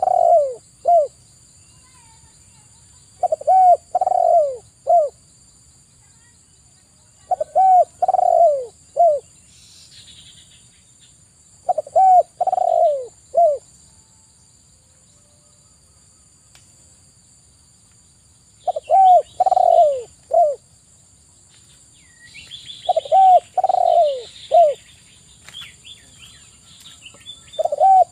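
Spotted dove cooing: a phrase of three or four falling coo notes, repeated about every four seconds, with one longer pause around the middle.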